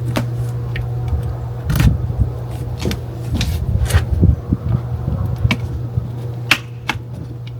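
Packaging being handled during an unboxing: scattered knocks, clicks and rustles, about half a dozen sharp ones spread through, over a steady low hum.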